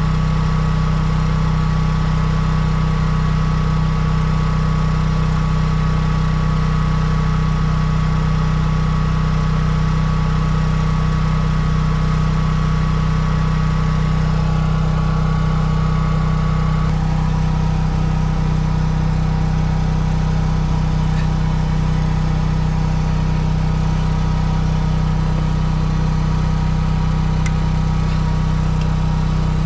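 An engine running steadily at constant speed, a continuous even hum with no pauses; its higher tones shift slightly about halfway through.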